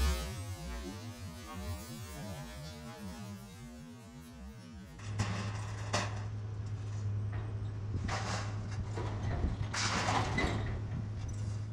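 Scrapyard material-handler crane working with its orange-peel grapple: after a quieter stretch, a steady engine hum starts about halfway through, with several loud metal crunches and clanks as crushed car bodies are grabbed and stacked.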